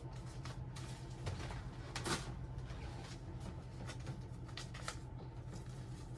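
Paper rustling as an envelope of mail is opened and handled, with soft scattered crinkles and one sharper rustle about two seconds in, over a steady low hum.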